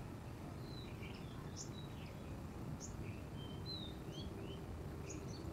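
Birds chirping faintly, many short high calls scattered throughout, over steady low background noise.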